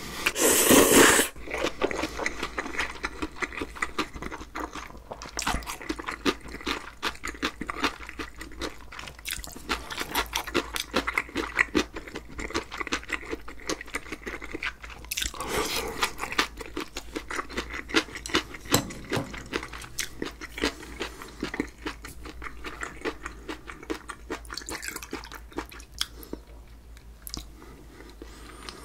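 Close-up eating sounds: a loud slurp of spicy mixed noodles in the first second or so, then steady wet chewing with many small crunchy clicks from the noodles' vegetables and sea squirt. There is a second louder slurp or bite about halfway through. The chewing grows quieter near the end.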